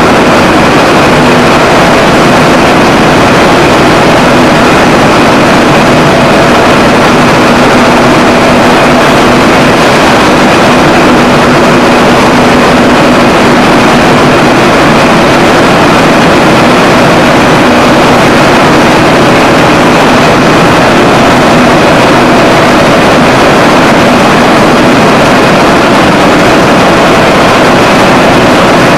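Textile spinning mill machinery running: a loud, steady mechanical din with several constant hums and no let-up.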